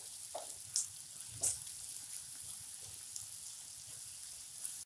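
Chopped onions, ginger-garlic paste and green chillies sizzling in hot oil in a non-stick pan as they are stirred with a spatula. A steady hiss, with a few short scrapes of the spatula against the pan in the first second and a half and one more near the end.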